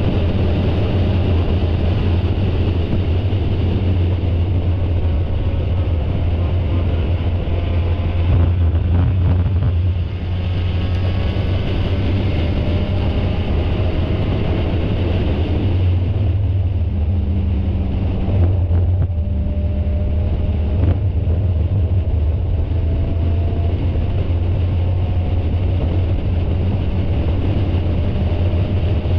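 Spec Miata race car's four-cylinder engine running hard under racing load, heard from an onboard camera along with wind and road noise. The engine pitch climbs steadily through the second half as the car accelerates, with a brief dip in level about ten seconds in.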